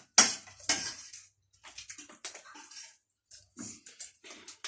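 Close-up eating noises of chatpate, a spicy puffed-rice snack, being chewed: a couple of loud crunches in the first second, then softer wet chewing sounds.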